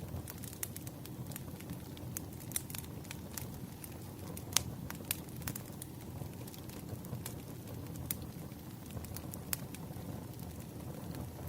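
Wood fire burning with a low steady rumble and irregular sharp crackles and pops of the burning logs.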